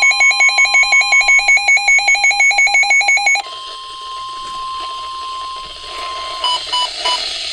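Steady NOAA Weather Radio warning alarm tone, with a pulsing electronic alert beeping about five times a second over it. The beeping cuts off about three and a half seconds in, leaving the steady tone alone until it stops about six seconds in, followed by three short beeps.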